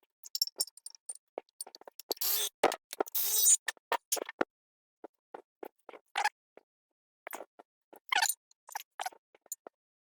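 Scattered clicks, clinks and knocks of metal disc-brake parts and hand tools being handled during spindle, rotor and caliper assembly, with two short scraping, rasping noises about two seconds in.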